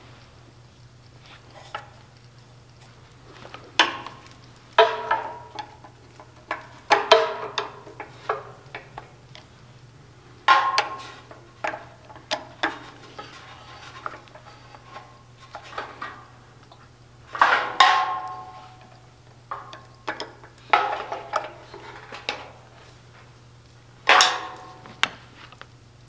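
Metal tools and parts clinking and clattering: a dozen or so irregular knocks, each with a short metallic ring, over a faint steady low hum.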